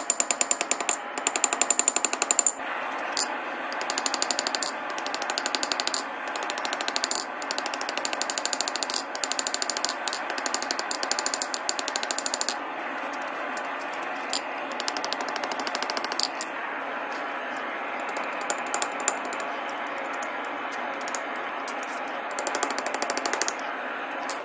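Hand hammer striking red-hot steel bar on an anvil in fast, repeated blows with a metallic ring, over a steady background hiss. The blows are loudest in the first couple of seconds and ease off in places later on.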